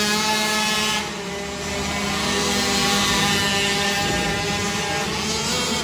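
Youth racing ATV engines running hard as quads lap a dirt flat track, one passing close at the start. The level drops abruptly about a second in, and the engines carry on at a steady pitch after that.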